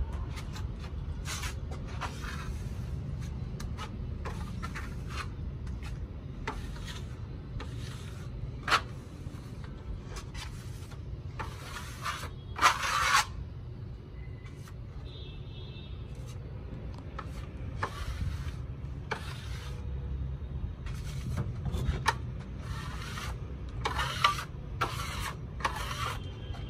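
A flat steel putty blade scrapes a second coat of white wall putty across a cement-plastered wall in repeated short strokes, with brief pauses between them. Two strokes stand out as louder, one about a third of the way in and one around the middle, over a steady low background rumble.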